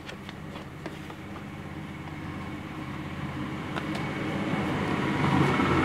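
A steady low machine hum and rumble that grows gradually louder, with a few light clicks and rustles of paper being handled.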